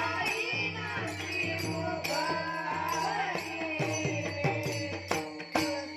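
Varkari devotional bhajan: a boy's lead voice sings a gliding, ornamented melody over a steady drone, with a group of small brass hand cymbals (taal) clashing in a steady rhythm.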